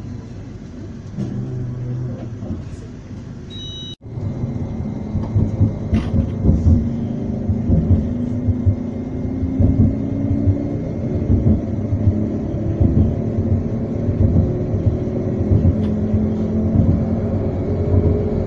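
Edinburgh tram running, heard from inside: a steady low rumble, with the electric traction motor's whine rising in pitch as the tram picks up speed. The sound cuts abruptly about four seconds in to louder running.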